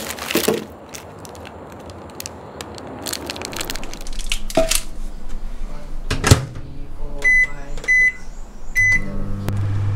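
A plastic food pack crinkling, then a countertop microwave oven's door shutting with a sharp knock, followed by three short keypad beeps. In the last second the oven starts heating with a steady low hum.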